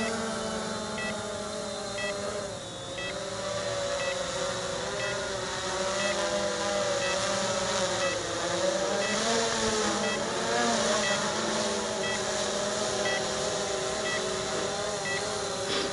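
Cheerson CX-20 quadcopter in return-to-land mode, its four motors and propellers making a steady whine of several tones that drift up and down in pitch. Short high beeps repeat about once a second.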